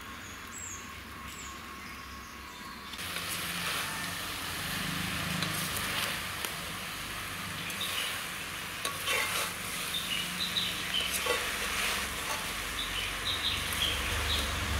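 Brinjal pieces sizzling in oil in a kadai over a wood fire, louder from about three seconds in, with a perforated steel ladle scraping and stirring through the vegetables.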